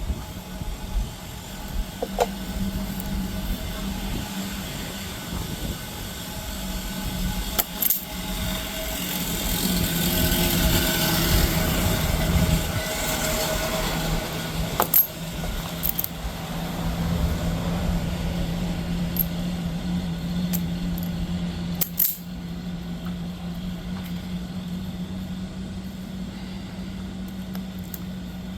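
Small tools and parts being handled, giving scattered sharp clicks and clinks over a steady low hum.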